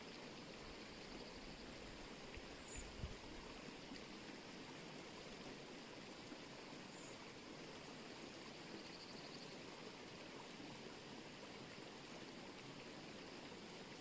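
Faint steady rush of running water from a small stream, with a few faint high bird chirps and a brief low thump about three seconds in.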